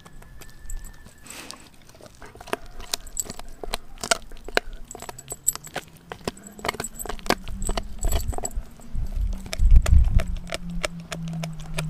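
Doberman gnawing a raw frozen pig's foot: irregular sharp crunches and clicks of teeth on frozen meat and bone. About halfway a low hum comes in, rises slightly and holds, with heavier low rumbling near the end.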